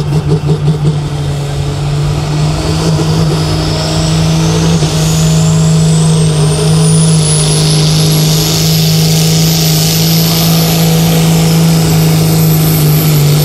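Turbocharged diesel engine of a red International Harvester Super Sport pulling tractor revving at the start line. It pulses unevenly for about a second, then runs at steady high revs. A turbocharger whine rises in pitch over several seconds and then holds high as boost pressure builds for the pull.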